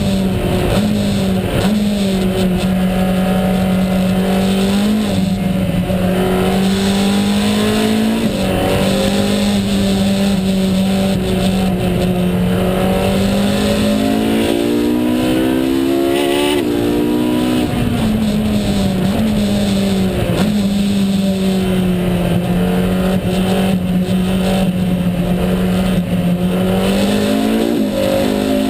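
Ferrari 458 Challenge's V8 engine from inside the cockpit, running hard at high revs. Its note mostly holds steady with short steps; just past halfway it climbs and then drops sharply.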